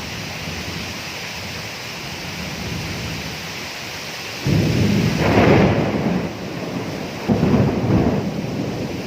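Steady rainfall with thunder: about halfway through a crack of thunder breaks in and rolls into rumbling, and a second rumble follows about a second later.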